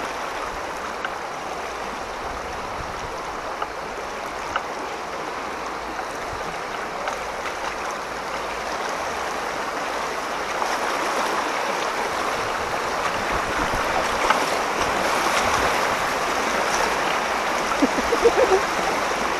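Floodwater rushing in a steady stream, growing a little louder partway through, with a few faint knocks near the end.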